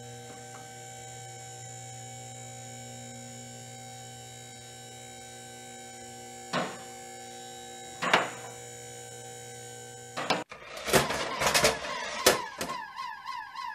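Steady electrical hum made of several fixed tones, with two sharp clicks partway through. About ten seconds in it stops and gives way to a clatter of knocks, then a rapidly warbling electronic siren-like tone near the end.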